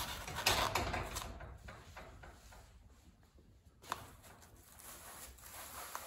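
Foil-faced rigid foam insulation board rustling and scraping against a steel garage door panel as it is pushed into place. It goes quieter after about a second and a half, with a single sharp click about four seconds in.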